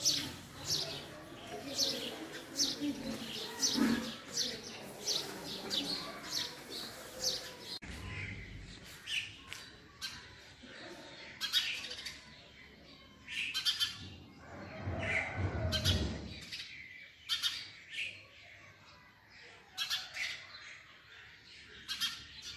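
Small birds chirping: a quick, regular run of short high chirps about two a second, then a female house sparrow's more scattered chirps.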